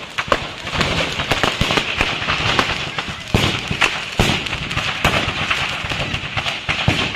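Firecrackers going off in rapid, irregular succession over a steady hiss: firecracker stock exploding in a shop fire.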